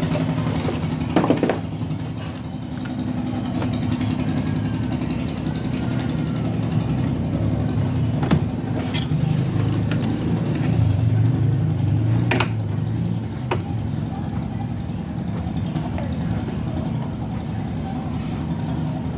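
Steady low rumble of motor traffic, with a few sharp clicks.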